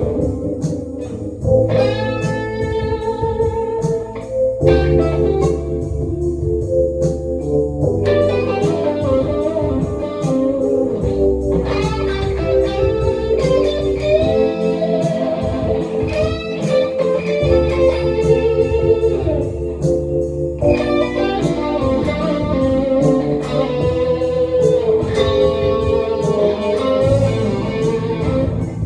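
St. Blues South 61 electric guitar playing a blues lead line with bent notes, over a steady low bass part.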